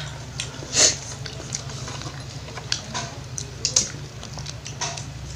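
People eating with spoons and forks off banana leaves: scattered short clicks, smacks and chewing noises, the loudest about a second in, over a steady low hum.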